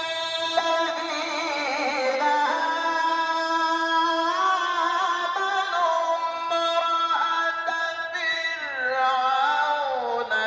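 A man chanting Quran recitation in the melodic tajweed style, holding long notes with ornamented turns and slow pitch glides, sung dry into a microphone with no added reverb or effects.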